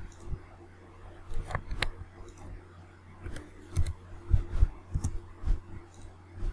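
Computer mouse clicks and keyboard keystrokes: about a dozen short, sharp clicks at irregular intervals, some with a soft low thud, over a faint steady hum.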